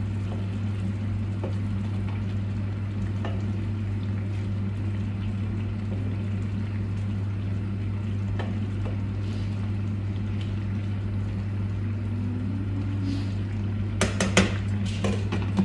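Wooden spoon stirring a simmering tomato curry sauce in a stainless steel pan, with faint scrapes and taps over a steady low hum. About fourteen seconds in, a glass lid clatters down onto the pan with several sharp clinks.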